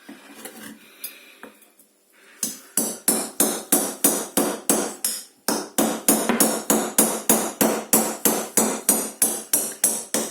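Hammer blows on a part-sawn frozen block of food to split it, a rapid run of sharp strikes, about three a second, starting a couple of seconds in with one short break midway.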